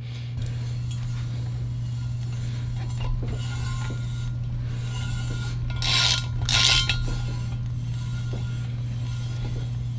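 M14x1.25 spark plug thread-repair tap being turned by hand in an aluminum cylinder head, cutting new threads: faint metallic clicks and scraping, with two louder rasping strokes about six seconds in. A steady low hum runs underneath.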